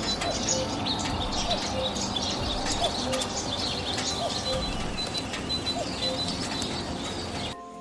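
Many birds chirping and calling over a steady hiss, with a lower short call repeating about once a second. The sound cuts off abruptly near the end.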